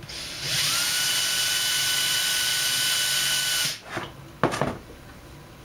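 Small handheld power tool's motor spinning up to a steady high-pitched whine over a hiss, running about three seconds, then stopping abruptly, followed by a few short clicks.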